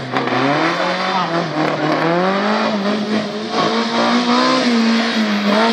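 Modified Autobianchi A112's small four-cylinder engine revving hard as the car is driven round the course. The pitch climbs, dips briefly about two seconds in, then climbs again and holds high.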